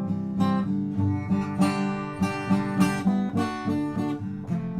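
Acoustic guitar being strummed, a run of chords with a sharp strum every half second or so.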